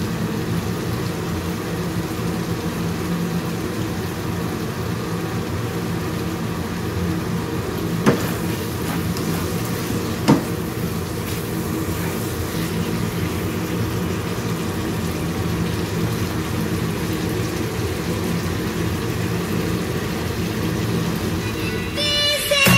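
Goat rica-rica simmering in a thick chili sauce in a wok, with a steady sizzling bubble. A spatula stirs it and knocks against the pan twice.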